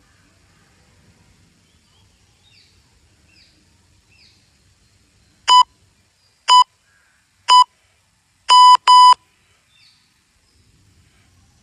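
Electronic interval-timer countdown: three short beeps a second apart, then a longer double beep marking the start of a one-minute work interval. Faint bird chirps come before the beeps.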